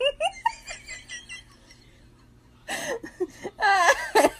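Person giggling in short, choppy bursts, then after a brief pause breaking into louder, high-pitched laughter.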